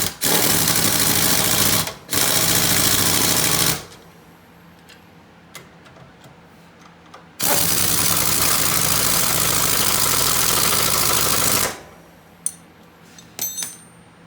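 Impact wrench hammering as it tightens the knuckle bolts on a UTV's front suspension, in three runs: two short bursts close together, then a longer run of about four seconds. A few light metallic clicks near the end.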